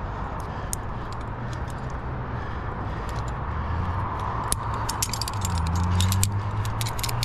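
Metal climbing carabiners and gear clinking as they are handled, with light clicks that come thicker in the second half, over a steady low rumble.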